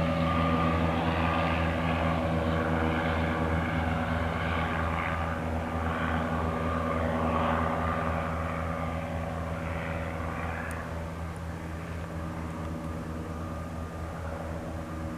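A 1975 Piper Cherokee Warrior's four-cylinder piston engine and propeller droning steadily as the plane climbs out after takeoff, slowly fading over the last several seconds.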